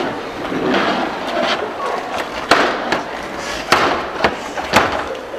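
A run of sharp knocks and clacks, several loud ones about a second apart in the second half, over a steady clattering background noise.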